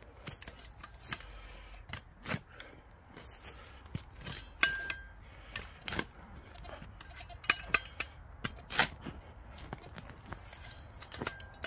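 A steel-bladed digging spade cut into dry, stony ground, stamped down with a boot and levered out: irregular sharp scrapes and metallic clinks as the blade grates on grit and stones, loudest a few times mid-way. A short high tone sounds twice.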